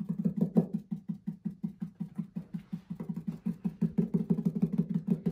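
Two stencil brushes pouncing paint through a stencil onto a painted wooden board: a fast, steady run of soft taps, about six or seven a second.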